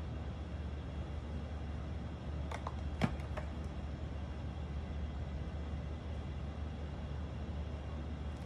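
Steady low hum of room tone, with two small clicks about three seconds in, the second the sharper.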